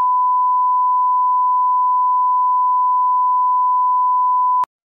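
A steady, pure beep tone with no other sound under it, laid in by the editor as a censor bleep over speech. It cuts off shortly before the end, just ahead of a harsher beep.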